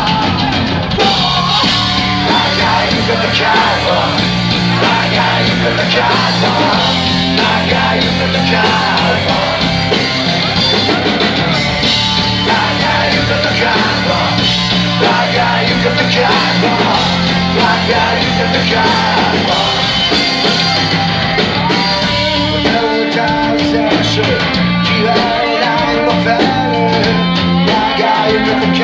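Rock band playing live on electric guitars and drum kit, heard from within the audience.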